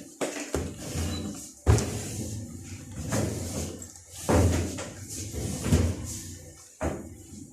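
A run of knocks and clunks with scraping between them, the loud ones coming about a second apart.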